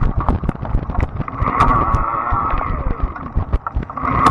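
Fat-tire electric bike riding a bumpy dirt trail: the bike rattles with sharp clicks and knocks over the bumps, and wind buffets the microphone. A steady whine from the e-bike's motor comes in about a second and a half in, drops away, and returns near the end.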